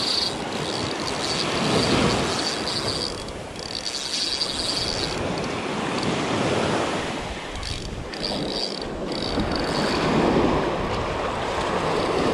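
Surf washing in and out around the legs, swelling about every four seconds. Over it runs an intermittent high whir in stretches of a second or two as a Penn spinning reel is cranked to bring in a hooked fish.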